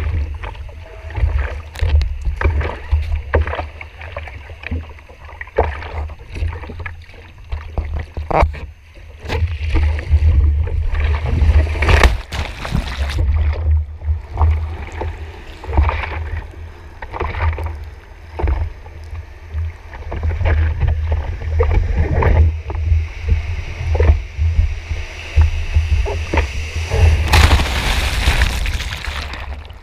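Seawater sloshing and splashing over an action camera that is repeatedly dunked in the surf, with a heavy low rumble of water buffeting the case. A loud rush of churning whitewater washes over it near the end.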